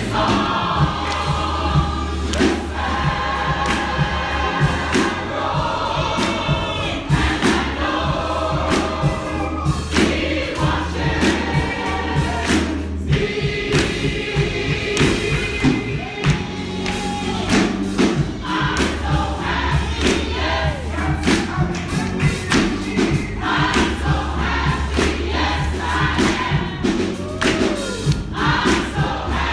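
Church congregation singing a gospel song together over a band, with a steady beat of sharp hits and sustained low bass notes underneath.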